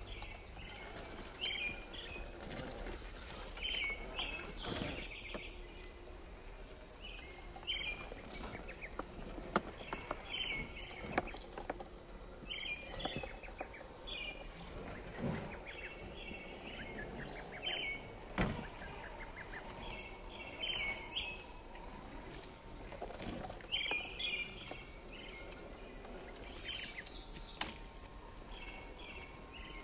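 Small songbirds chirping in short repeated phrases every second or two, over a steady outdoor background, with a few sharp knocks scattered through.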